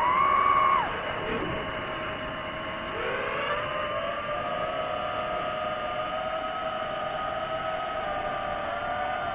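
DJI FPV drone's motors and propellers whining, the pitch changing with throttle: loudest and highest at the start, dropping sharply about a second in, climbing again about three seconds in, then holding steady.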